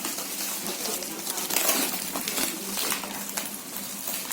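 Crackling, rustling handling noise with many small clicks, over a faint steady hum.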